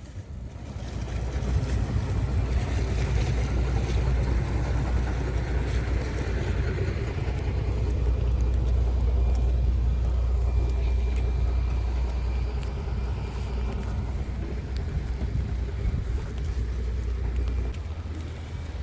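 Steady low rumble of a moving vehicle, which eases off in its deepest part near the end.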